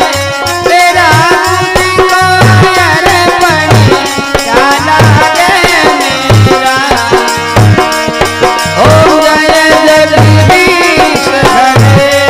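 Rajasthani devotional bhajan music: a wavering melody over held notes, with low hand-drum strokes beating through.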